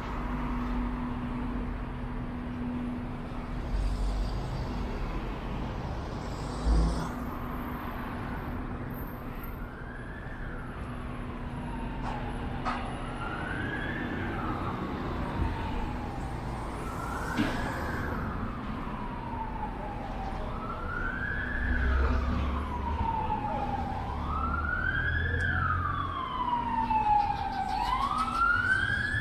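Emergency vehicle siren wailing, rising quickly and falling slowly about every four seconds, starting about nine seconds in and growing louder near the end, over steady street traffic noise.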